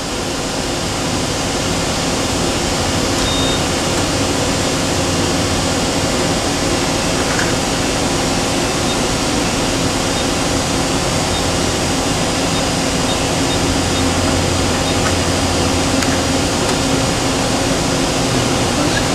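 Spindle of a 2001 Okuma MA-50HB horizontal machining center, with a CAT-50 tool holder in it, running unloaded at high speed, commanded to 6,000 rpm. A steady machine hum with a few held tones builds up over the first couple of seconds, then holds even.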